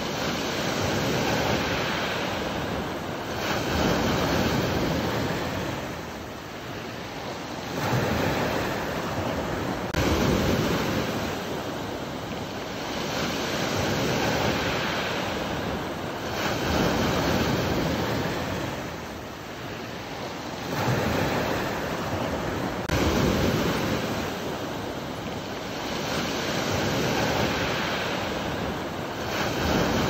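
Sea surf: waves breaking and washing ashore, the rushing noise swelling and ebbing every few seconds.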